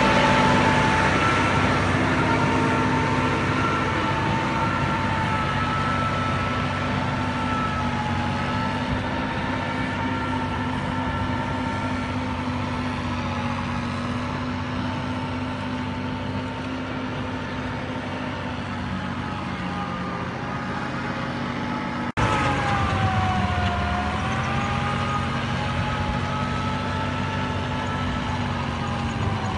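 An engine running steadily, its pitch wavering slightly. It breaks off abruptly about 22 seconds in and carries on slightly louder, dipping briefly in pitch.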